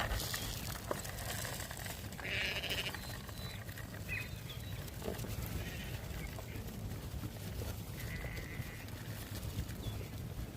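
Lambs bleating at feeding time: one call about two seconds in and another near eight seconds, over a steady low rumble.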